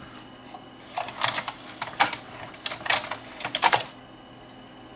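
Pioneer PDM703 cartridge CD changer's mechanism changing discs: two quick runs of the loading motor, each a high whine with gear and lever clicks, about a second and a half apiece with a short pause between.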